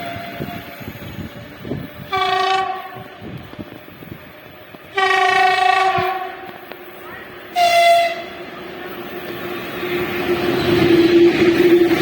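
Locomotive horn sounding three blasts, short, longer, short, followed by the growing noise of an approaching train with a steady tone that gets louder toward the end.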